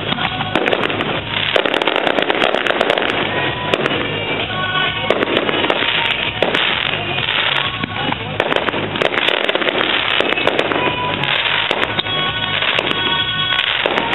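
Fireworks display going off continuously: rapid bangs and crackling shells with no let-up, over music playing.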